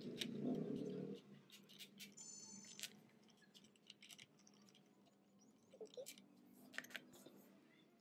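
Light clicks and small scrapes of a screwdriver and screws as the four cooler-mounting screws are taken out of an AM4 motherboard, with a short high squeak a little after two seconds. Under it is a low hum, loudest in the first second.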